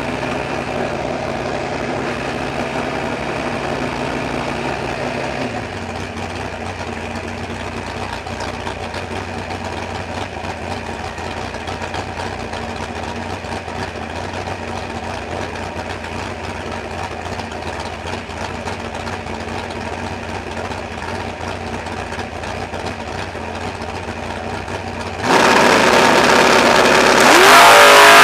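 Super Stock drag car's engine idling steadily, heard from inside the cabin, its idle settling to a lower note about five seconds in. Near the end it is suddenly brought up to a loud, steady high rpm on the starting line, then launches, climbing in pitch as the car accelerates hard.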